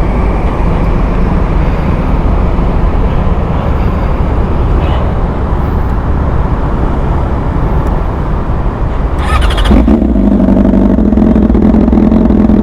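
Yamaha R6 inline-four running through an SC Project aftermarket exhaust. The sound is rough and rumbling at first; just after nine seconds there is a short burst of noise, and then a steady, louder drone held at constant revs.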